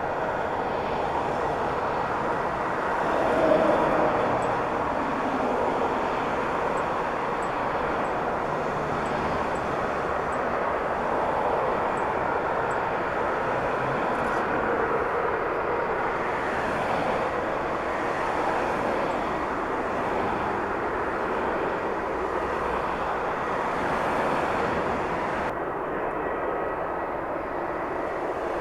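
Jet airliner engines at takeoff power: a steady rushing noise with a faint whine, swelling briefly a few seconds in. The top end of the hiss cuts off suddenly near the end.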